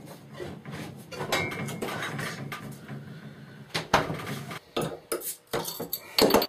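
Glass bottles clinking and rustling in an open refrigerator over a low steady hum, then a sharp knock as the fridge door is shut about four seconds in. Several sharp clicks and clacks of a glass bottle being handled on the counter follow, loudest near the end.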